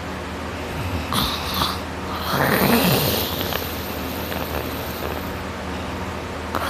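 A person snoring loudly while sleeping on their back. A short rasp comes about a second in, then a longer, louder snore about two and a half seconds in.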